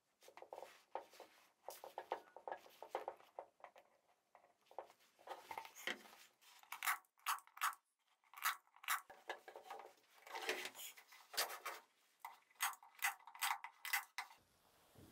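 Chrome hand-squeezed staple gun driving staples into a plywood stool seat, a run of sharp snaps that come mostly in the second half, with fabric and batting rustling as they are handled in between.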